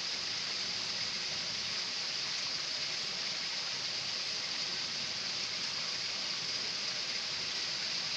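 Steady, even rush of running spring water.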